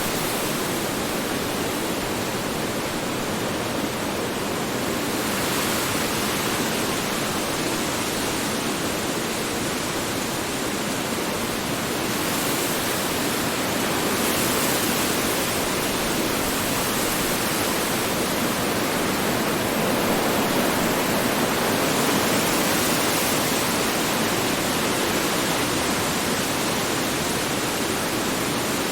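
Strong wind blowing steadily, a dense rushing noise that swells and eases slightly.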